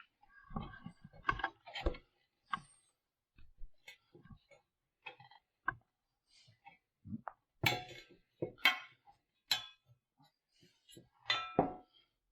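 Irregular metallic knocks and clinks of a sheet-metal patch panel and hand tools being handled, with a few sharper knocks a little past the middle and near the end.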